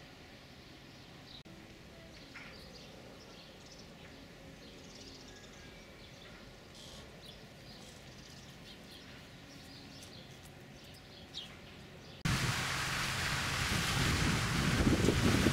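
Quiet outdoor ambience with faint, scattered bird chirps. About twelve seconds in it cuts abruptly to a loud, steady rushing noise that grows louder toward the end.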